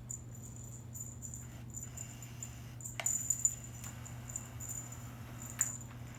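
Small, high tinkling jingles and rattles of a cat toy as kittens bat it around, with a couple of sharper clicks about three and five and a half seconds in, over a steady low hum.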